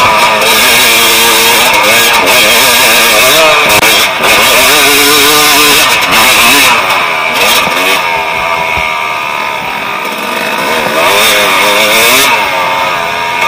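Dirt bike engine revving hard under load on a steep dirt climb, its pitch rising and falling over and over with the throttle, with wind rushing over the microphone that eases off about halfway through.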